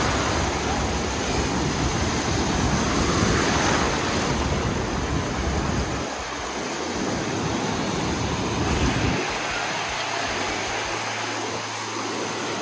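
Ocean surf rushing and breaking in shallow water, a steady hiss of foam and waves. A low rumble under it drops away about six seconds in.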